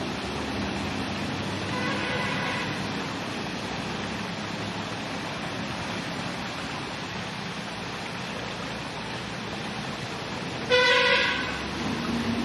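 Steady street traffic noise with a vehicle horn honking twice: faintly about two seconds in, then loudly for about half a second near the end.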